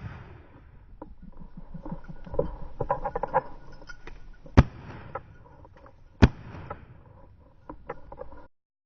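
Two shotgun shots about a second and a half apart, amid rustling and clicking in the field cover before and after them.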